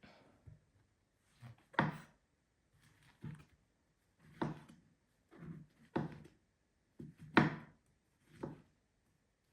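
A series of about ten irregular knocks and thuds, the loudest about two seconds in and again past seven seconds.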